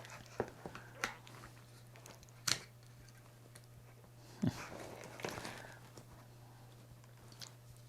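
A few light clicks, taps and a brief rustle from the DJI Ronin 4D Flex unit being handled, the sharpest tap about two and a half seconds in, over a low steady hum.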